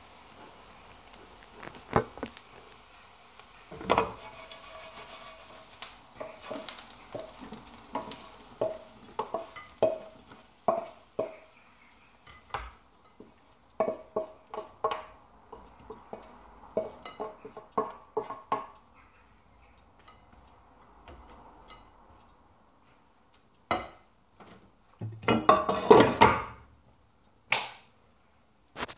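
A frying pan being handled as fried chips and vegetables are tipped out of it: a run of metallic clinks, knocks and scrapes, some briefly ringing. A louder, denser clatter comes near the end.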